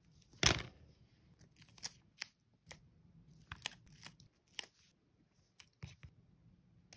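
Stickers being handled on a clear plastic sheet and pressed onto a notebook's paper page. A loud plastic crinkle comes about half a second in, followed by scattered crisp crackles and clicks as the film is rubbed and peeled.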